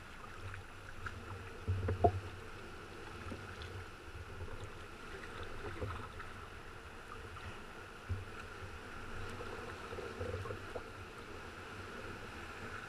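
Sea water lapping and sloshing against a sea kayak's hull, with swell washing over the rocks nearby in uneven surges; a sharper slap or knock about two seconds in.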